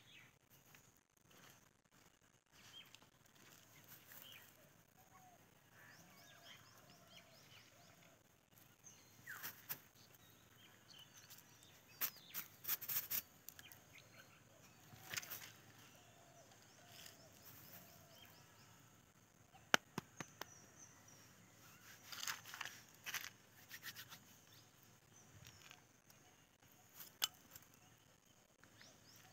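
Quiet outdoor ambience with faint bird chirping, broken by scattered sharp clicks and crackles that come in a few short clusters.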